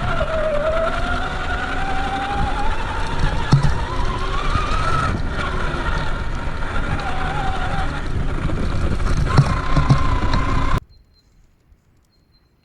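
Traxxas Summit RC truck's brushed electric motor and drivetrain whining, the pitch rising and falling with throttle, over rumbling and a few knocks as the truck drives on rough ground. The sound cuts off suddenly near the end, leaving only faint background.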